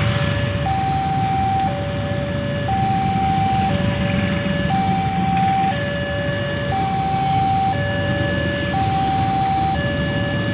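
Railway level-crossing warning alarm sounding as the gates close for an approaching train: two alternating tones, a higher and a lower, each held about a second, over a steady low rumble.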